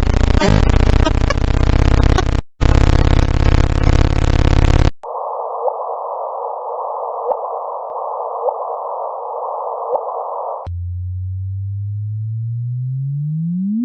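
Electronic sonifications of space recordings, played back to back. First a loud, buzzing drone with many overtones, then a steady hiss with a low hum under it. About eleven seconds in comes a low tone that sweeps up in pitch ever faster and stops abruptly: the chirp of two black holes merging, rendered as sound.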